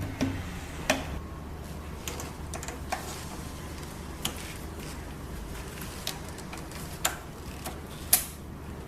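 Irregular sharp clicks and knocks of equipment being handled, about eight of them, the loudest near the end, over a steady low hum.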